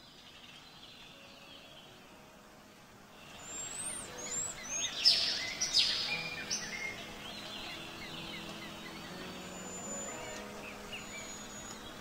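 Forest ambience with several birds chirping and whistling. The calls start about three seconds in after faint hiss, and are busiest and loudest around the middle. Soft sustained music notes run underneath.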